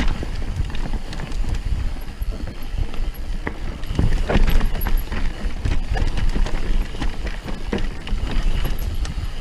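Mountain bike riding fast down a rocky dirt trail: tyres rolling over stones and roots with irregular sharp knocks and rattles from the bike over the bumps, under a steady rumble of wind on the microphone.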